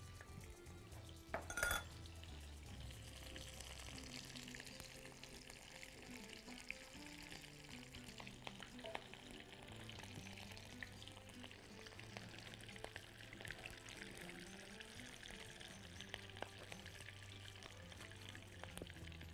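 Butter going into hot oil in a frying pan: a sharp spatter about a second and a half in, then steady sizzling, under background music.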